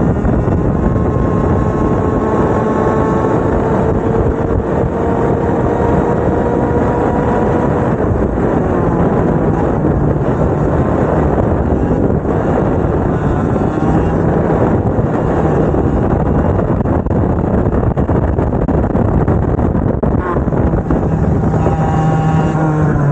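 Several two-stroke racing kart engines running hard at once, a high buzz whose pitch rises and falls as the karts accelerate and lift off.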